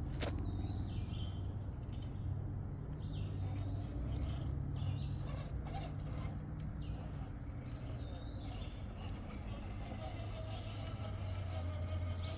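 Scale RC crawler trucks' electric motors and gearing running with a low, steady hum that rises and falls with throttle as they crawl over dirt, with a few light clicks. A bird calls about four times, each call a short high note that drops in pitch.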